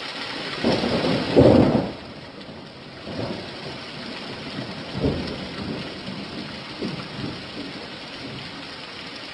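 Steady rain falling, with a roll of thunder rumbling about a second in, the loudest part, and fainter rumbles later.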